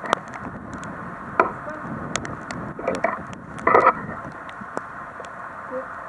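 Footsteps and scuffs over wet debris, with scattered clicks and a steady hiss behind them; a couple of louder scrapes come about three and four seconds in.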